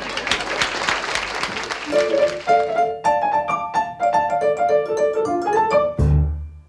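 Audience applause for about two seconds, then a short piano tune of quick single notes, ending on a low note about six seconds in and cutting off.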